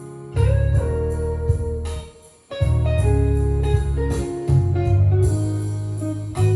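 Music with heavy bass playing through a Marantz 1040 console stereo, with a short break about two seconds in.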